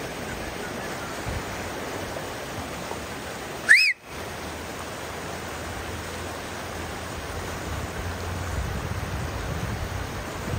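A steady rushing noise, with one short whistle-like chirp that rises and falls just under four seconds in, the loudest thing heard; the sound drops out for a moment right after it.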